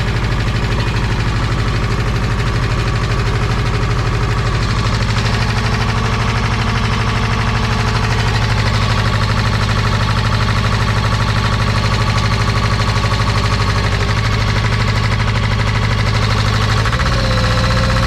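Pressure washer's engine running steadily, just brought to life by a jump start, with a small shift in its note near the end.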